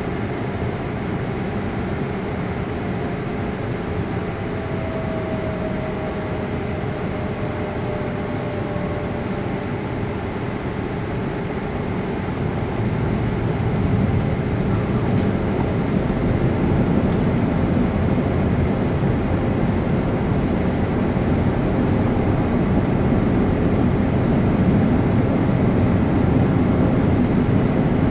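Cabin noise inside a Boeing 787-9 airliner in flight: a steady rush of jet engines and airflow, heard through the cabin during the descent toward landing. It grows louder, with more low rumble, about halfway through.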